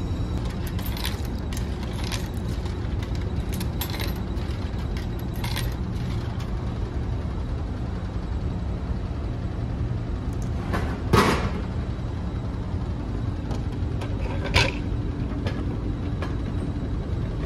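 Steady low drone of the ferry's engines. About two-thirds of the way through, a drink drops with a heavy clunk into a vending machine's retrieval bin, followed by a smaller sharp knock a few seconds later.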